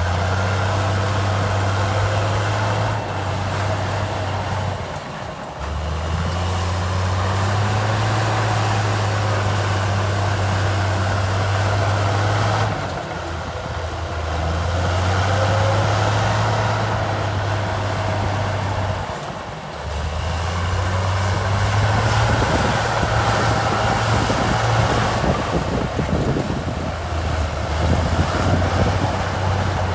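Heavy diesel engine of an earthmoving machine working. It runs at a steady pitch, drops off briefly about five, thirteen and nineteen seconds in, and picks back up each time.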